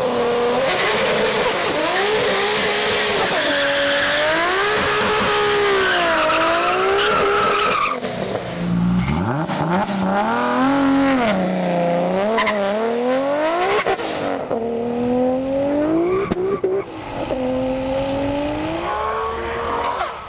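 Turbocharged Toyota Supra engine held at high revs under a loud hiss for about eight seconds, then launching hard: the engine note climbs and drops again and again as the manual gearbox is shifted up through the gears.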